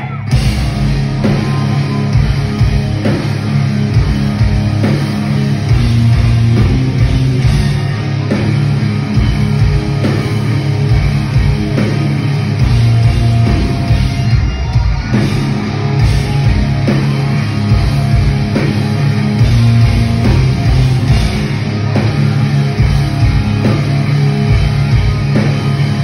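Live rock band playing loud and heavy: distorted electric guitars, bass and a pounding drum kit, kicking in at full volume right at the start, as heard from the crowd.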